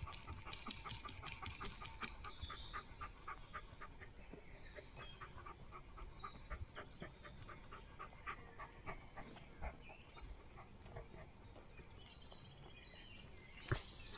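A dog panting close to the microphone, short rhythmic breaths at about four a second, thinning out after the first few seconds. A single sharp knock near the end.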